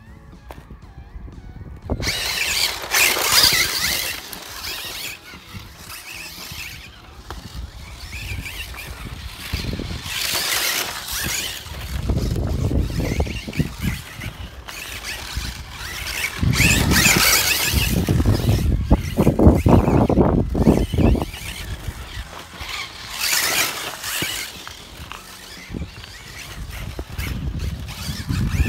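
Kyosho Turbo Optima electric RC buggy driving on a loose gravel track: its motor and drivetrain run in several loud bursts as it accelerates and passes, with the tyres throwing and scrabbling over gravel.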